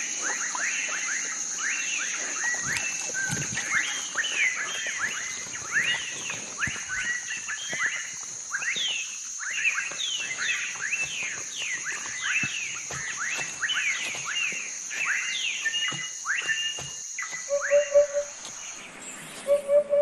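Night-time grassland ambience: a steady high insect drone under many quick, downward-sweeping chirping calls. A few soft music notes come in near the end as the drone stops.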